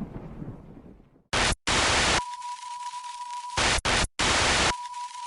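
Video transition sound effect: a low rumble fades out in the first second. Then loud bursts of TV-style static start and stop abruptly, five in all, with a steady high beep sounding between them.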